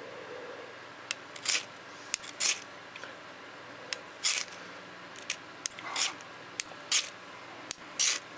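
Knife blade scraped down a flint fire-starter bar, striking sparks onto wood-shaving tinder: about eight short, hissing rasps with sharp clicks between them, coming roughly once a second after a quiet first second.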